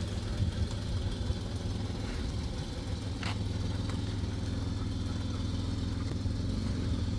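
2007 Chevrolet Equinox's V6 engine running at low speed as the SUV rolls forward and turns, a steady low hum.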